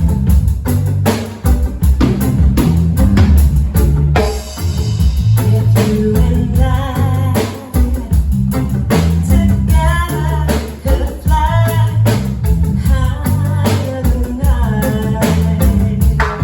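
Live band playing a song with drum kit, bass and guitar, with a wavering melody line coming in about six seconds in.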